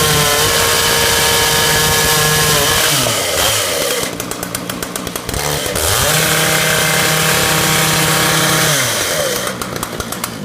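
Two-stroke ICS concrete chainsaw with a water-fed diamond chain cutting sandstone. It is held at full throttle, the revs drop away at about 3 seconds with a rapid ticking, climb back to full speed at about 6 seconds, then drop again near the end.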